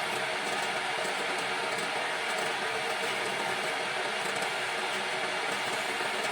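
Wood lathe running with a tool cutting the spinning wood: a steady hiss and whir that holds an even level.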